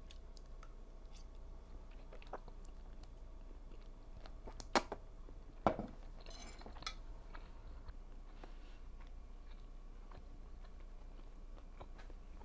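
A fork clinks against a plate, with two sharp clinks midway as a bite of pasta is speared, then quiet chewing.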